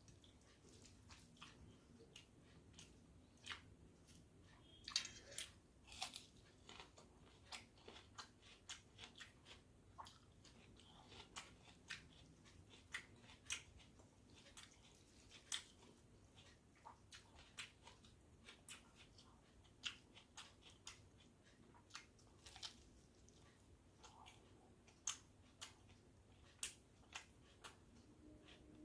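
A person eating close to the microphone: irregular faint wet mouth clicks and crunches from chewing a meal of panta bhat (rice soaked in water) with onion fritters, about one to three a second, with a few sharper bites standing out.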